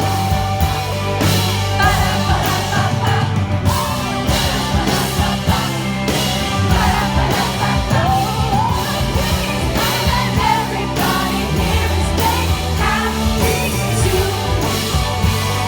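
Live rock band playing: steady drum beat, bass and guitars, with a singer's voice over them.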